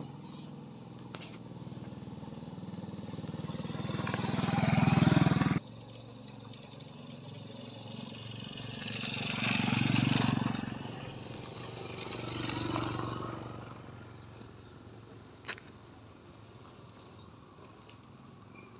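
Small motorcycles and scooters riding past one after another on a gravel road, each engine growing louder as it comes close and then fading. The loudest pass cuts off abruptly about five and a half seconds in, and two more bikes pass around ten and thirteen seconds in.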